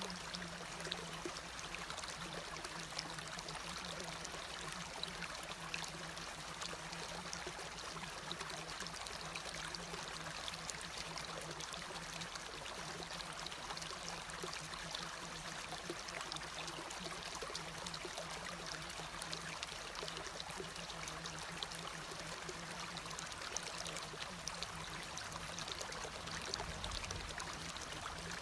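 Steady rain falling: an even hiss made up of many fine drop ticks, with no let-up.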